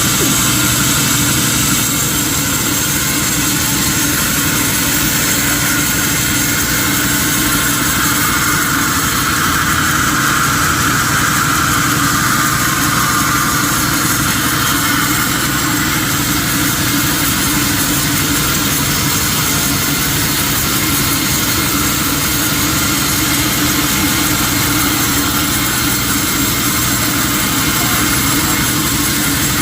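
Sawmill machinery running steadily, a continuous machine drone with a hiss over it that brightens for a few seconds about a third of the way in.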